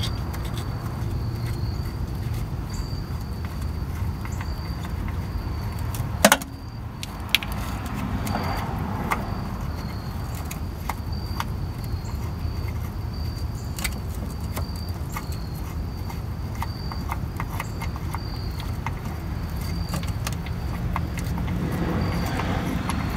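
Scattered light metallic clicks and clinks of a socket extension and socket on the starter's lower mounting bolt as it is worked loose, with one sharp louder click about six seconds in, over a steady low rumble.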